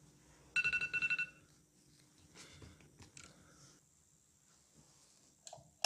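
Smartphone timer alarm going off: a rapid, pulsing electronic beep lasting under a second, starting about half a second in. It is followed by a few faint clicks and a short knock near the end.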